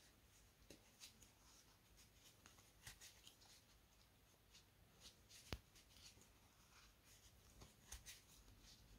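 Near silence with faint scattered ticks and light rustling of a large plastic crochet hook working thick cotton cord; the clearest tick comes about five and a half seconds in.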